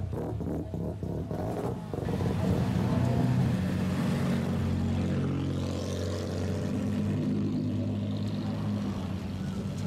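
Modified cars with loud exhausts driving slowly past one after another, engines running with a low burble. An engine revs up, rising in pitch, about halfway through.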